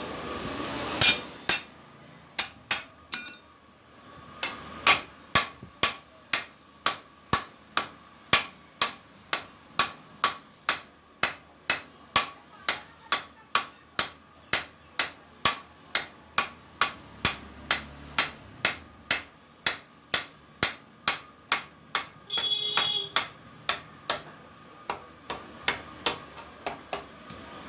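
Hammer striking metal in a steady rhythm, about two blows a second, after a few scattered blows at the start. A brief metallic ringing comes a little before the end.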